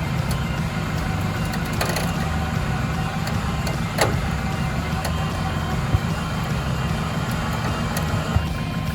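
A motor vehicle's engine running steadily at low revs, with a few sharp knocks or snaps over it, the clearest about four seconds in.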